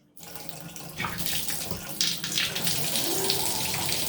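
Water rushing from a newly installed shower mixing valve as it is turned on to hot, getting louder in steps about one and two seconds in as the valve is opened further.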